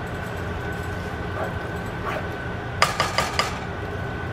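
A spatula stirring thick creamy pasta in a metal pot, knocking against the pot in a quick run of four or five clicks about three seconds in, over a steady low hum.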